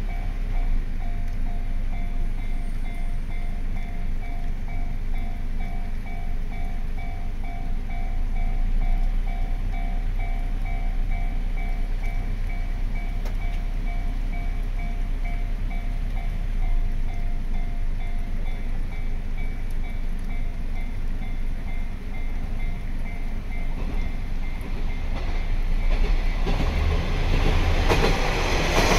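Japanese level-crossing warning bell ringing in a fast, even ding-ding rhythm. Over the last few seconds the rumble of an approaching KiHa 40 series diesel railcar grows louder.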